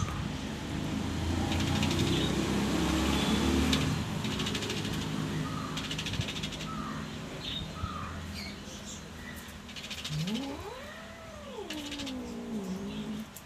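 Domestic cat giving a threat display: a low, rough growl for the first few seconds, then one long yowl about ten seconds in that rises steeply in pitch and falls away.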